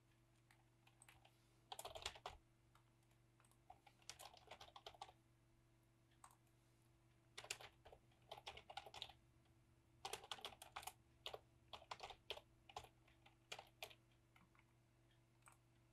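Faint typing on a computer keyboard, keys clicking in several short bursts with pauses between them.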